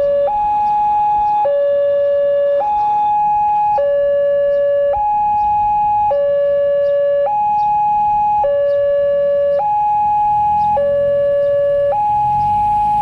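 Railway level crossing's electronic warning siren sounding a steady two-tone hi-lo alarm, switching between a higher and a lower tone a little more than once a second. A low rumble builds underneath near the end.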